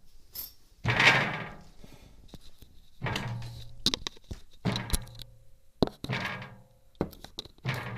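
Five loud knocks or bangs on a window, about one every second and a half, each followed by a short rattling ring that dies away. The source is unexplained.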